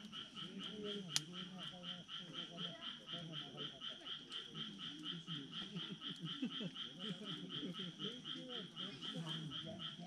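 A chorus of frogs calling: one steady pulsing trill of about five pulses a second over many overlapping lower calls. One sharp crack from the campfire embers about a second in.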